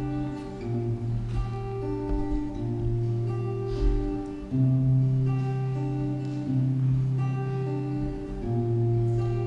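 Acoustic guitar playing a slow instrumental intro, held chords with a bass note that changes about every one and a half to two seconds.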